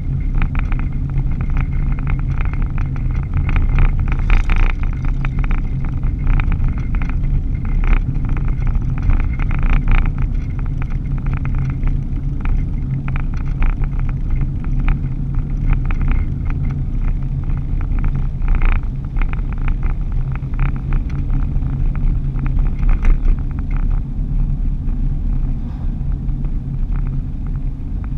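Steady low drone of a vehicle's engine and tyres on the road, heard from inside the cab while driving, with irregular light rattling throughout.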